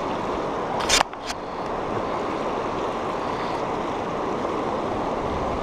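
Steady rush of wind on the microphone and moving river water, with two sharp knocks about a second in.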